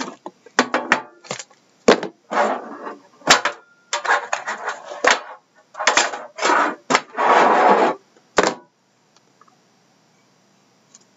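Metal card tin being handled and opened: a run of clicks, knocks and scrapes as the lid comes off and the foil-wrapped card box is slid out, with a longer scrape close to eight seconds in.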